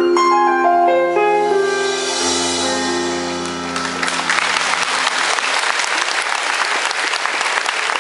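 Closing notes of a live band: a short descending run of notes over a held chord that dies away, then audience applause breaking out about four seconds in and going on.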